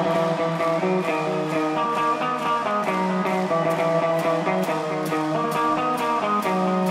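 Electric guitar on a live stage playing a picked, repeating melodic riff as the song's instrumental intro, note following note, with a faint regular ticking above it.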